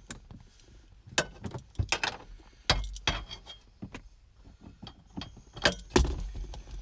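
Irregular clicks, clinks and knocks of hand tools against hard plastic while an HVAC door actuator motor is taken off the heater box, with a few louder knocks about 1, 3 and 6 seconds in.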